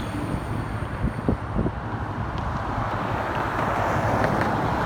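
Wind buffeting the phone's microphone outdoors: a steady, uneven low rumble, with a couple of faint clicks about a second in.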